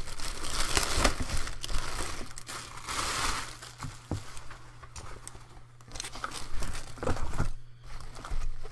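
Backpack being handled and turned over: irregular crinkling and rustling with a few small knocks, busiest in the first few seconds, easing off in the middle and picking up again near the end.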